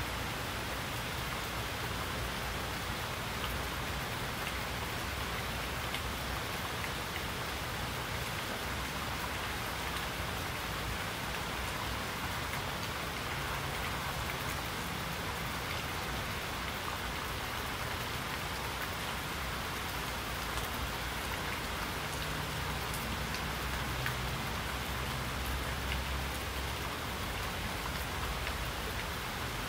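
Steady rain falling: an even hiss with scattered sharp ticks of individual drops.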